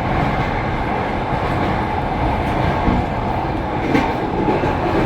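Passenger train wheels clattering over the rails, heard from the window of the last carriage: a steady rumble with a couple of sharp knocks, the sharpest about four seconds in.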